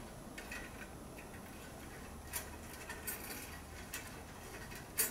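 Quiet room tone with a few faint, scattered light clicks, the sharpest one near the end.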